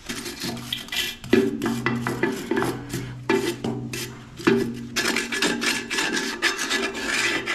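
Rasping, scraping strokes of metal against metal at a tractor's rear drum-brake assembly, with a low metallic ring that comes and goes, the scraping busier in the second half.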